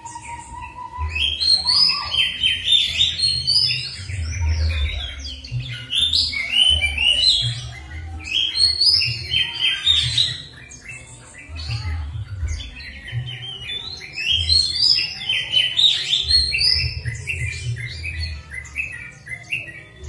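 A songbird sings rapid, chattering phrases in about five bursts of two to four seconds, with short pauses between them. A low rumble sits under the bursts.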